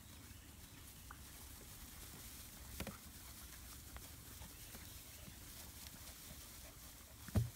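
Faint rustling and light patter of Doberman puppies and an adult Doberman scrambling about in grass, with a few small scattered clicks. A short, sharp thump near the end is the loudest moment.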